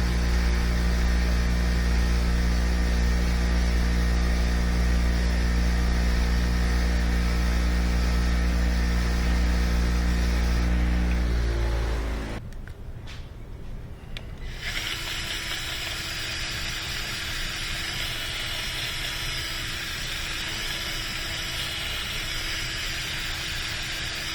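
Bench grinder wheel running steadily, then switched off and winding down in pitch about halfway through. A few seconds later a drill with a bit runs with a higher whine, cleaning rust out of the brake caliper's slider-pin bores.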